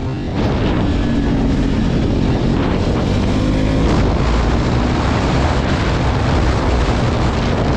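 KTM RC 390 motorcycle's single-cylinder engine running loud through its exhaust, getting louder about half a second in and then holding steady.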